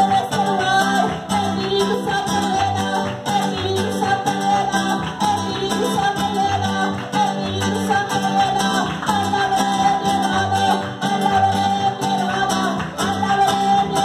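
Amplified Latin-style worship song ('coro'): a singer over guitar and bass with a steady beat.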